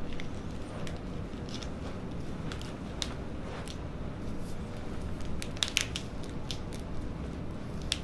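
Scattered small clicks and rustles as a chiropractic Y-strap is set on the head and drawn taut by its handle, with a sharper cluster of clicks a little before six seconds, over a steady low room hum.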